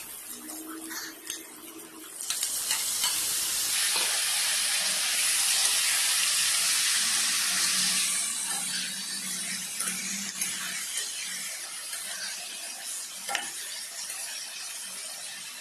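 Pieces of pork frying with onions and green chillies in a wok, stirred with a metal spatula. A loud sizzle starts suddenly about two seconds in as the meat hits the hot oil, then eases after several seconds to a steadier fry. Spatula scrapes run through it, with one sharp knock near the end.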